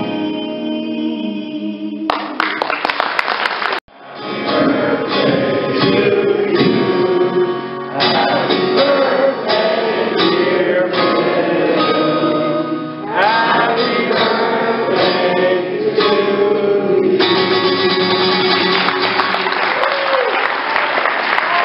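Acoustic guitar strummed in chords while two men sing a song, one of them an elderly man singing into a handheld microphone. The sound cuts out and restarts about four seconds in, and audience applause rises under the last few seconds of the song.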